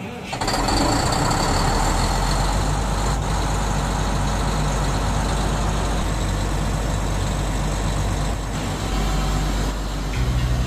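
Truck-mounted water well drilling rig running loud and steady, its engine and air blowing out the borehole. About ten seconds in, it gives way to a lower, pulsing engine drone.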